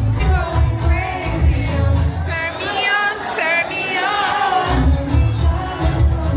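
Pop music with a singer over a heavy bass beat; the bass drops out for about two seconds in the middle while the singing carries on, then comes back in.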